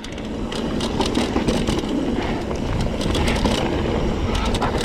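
Mountain bike rolling fast down a dirt trail: steady tyre rumble and wind on the microphone, with scattered clicks and rattles from the bike over rough ground.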